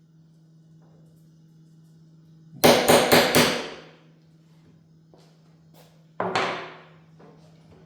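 Hammer blows: four quick strikes about two and a half seconds in, then a single strike near the end, each ringing out briefly, over a steady low hum.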